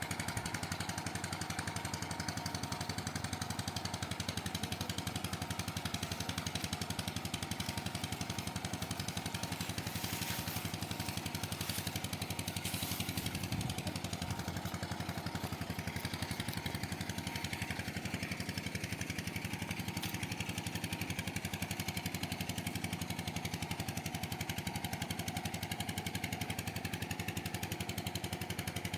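A small motor running steadily at an even speed.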